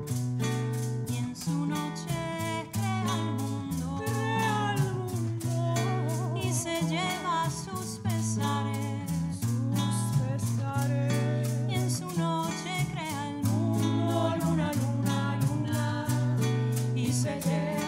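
Live acoustic music: guitar over a steady bass line with a quick, even rhythm, and a voice singing a wavering melody on top.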